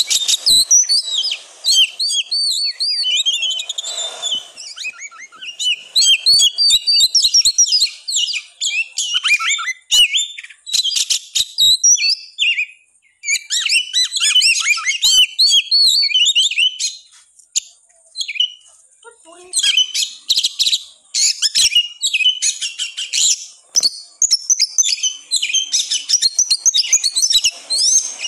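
Oriental magpie-robin (kacer) singing a fast, near-unbroken stream of varied whistles and chirps, the intense 'ngotot' full song of a fired-up male used to provoke other kacer into singing. The song pauses briefly twice in the middle.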